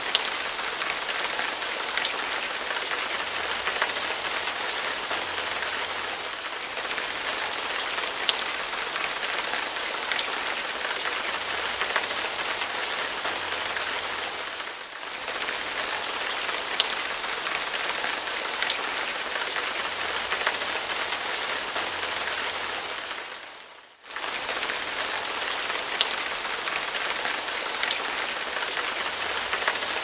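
Recorded rain sound effect: steady rain falling, an even hiss with scattered drop ticks. It dips briefly about halfway through and again, more deeply, some eight seconds later.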